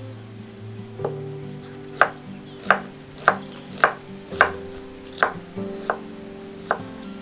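A chef's knife cutting through peeled boiled eggs and knocking on a wooden chopping board: about nine sharp chops at an uneven pace, closest together in the middle.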